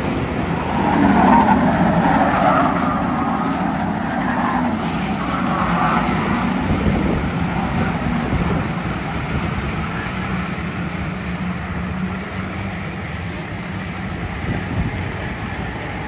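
A pack of Ford Crown Victoria race cars running on an oval track, their V8 engines all going at once. The sound swells as cars pass about a second in and again around six seconds, then settles to a steadier, slightly quieter drone.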